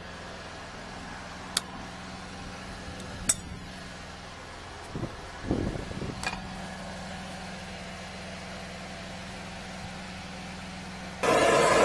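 Sharp metallic clicks and clinks from brass hose fittings being handled with pliers, over a steady low machine hum. Near the end, a loud, steady rushing noise starts abruptly as the high-pressure drain jetter comes on.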